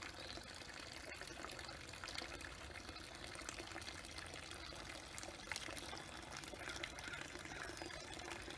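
Faint, steady trickle of gray water pouring from a pipe into a shallow pond.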